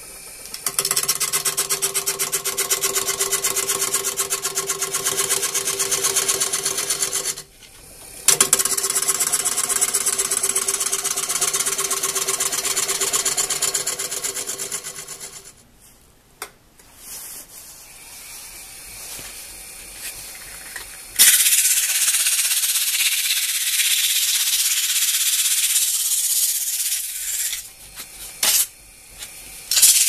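Woodturning gouge cutting into a spinning wooden bowl blank on a lathe, with a fast, even rattle and a brief pause about seven seconds in; it stops about halfway through. Later, an even high hiss of abrasive sanding against the turning wood runs for about six seconds.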